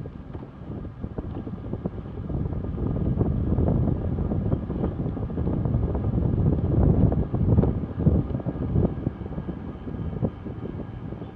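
Wind buffeting the microphone of a camera riding on a moving recumbent bicycle: a gusty low rumble that swells and fades, loudest about seven to eight seconds in.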